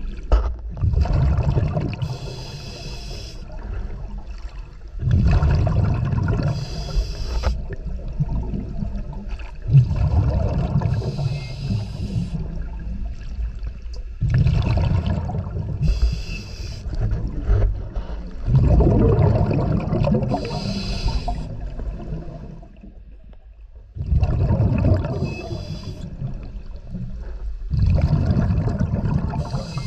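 Scuba diver breathing through a regulator underwater: a hiss on each inhale and a burst of rumbling exhaust bubbles on each exhale, in a regular cycle about every four to five seconds, with one longer pause a little past the middle.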